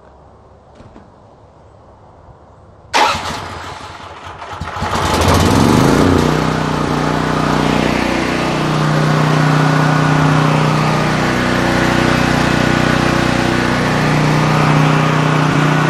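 Troy-Bilt XP 7000 portable generator's engine started on choke: it fires about three seconds in, its speed rises for a couple of seconds, then it runs steadily at full throttle. It has no idle control, so it holds full speed whatever the load.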